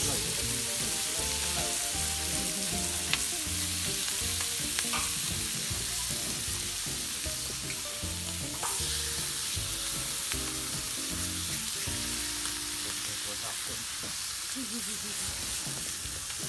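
Meat slices sizzling on the hot steel sear plate of a wood-burning fire pit, a steady frying hiss. A few sharp clicks of metal tongs and spatulas turning the meat.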